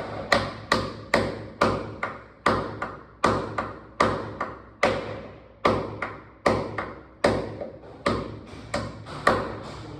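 Hammer driving a nail into a very hard wall: a steady run of sharp, ringing blows, about two to three a second, with no let-up.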